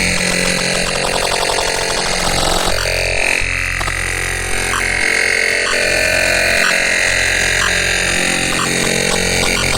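Glitch electronic ringtone: a dense, harsh wash of synthesized noise over held high tones and a low drone, with faint regular ticks.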